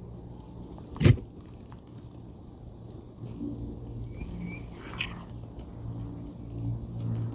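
A flat pry bar working under an asphalt roof shingle to break its tar seal: one loud sharp snap about a second in and a softer click near five seconds, over a steady low hum.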